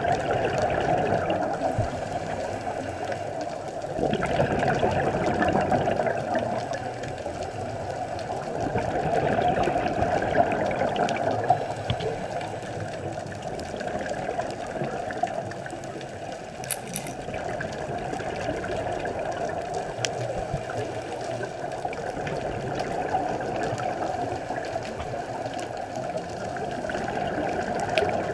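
Scuba diver's regulator breathing heard underwater: a muffled rush of bubbling exhalations that swells and fades every few seconds.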